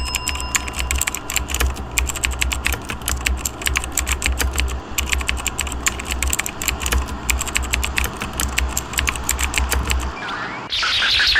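Rapid typing on a computer keyboard, many key clicks a second over a steady low hum; the typing stops about ten seconds in.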